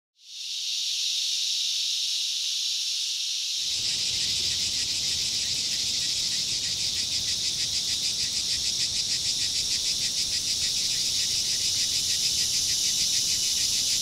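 A chorus of cicadas buzzing: a steady, high-pitched drone that fades in at the start. A few seconds in, a low rumble of background noise joins it, and the buzz takes on a fast, even pulsing.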